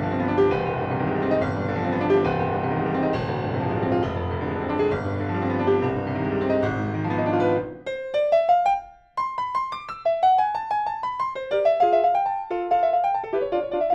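A Yamaha C3X grand piano played: a dense passage with full chords and bass, then, from about eight seconds in, after a brief break, quick, light runs of rising notes in the middle and upper range with almost no bass.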